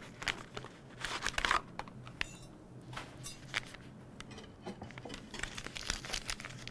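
Packet of instant vanilla pudding mix crinkling and tearing as it is worked open by hand, in irregular rustles and small crackles, busiest about a second in and again near the end.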